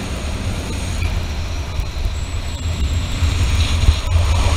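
Jet-ski-powered boat (a Sea-Doo docked into a Sealver Wave Boat hull) running fast over water: a steady, loud low rumble and rushing noise, heavy with wind buffeting the microphone.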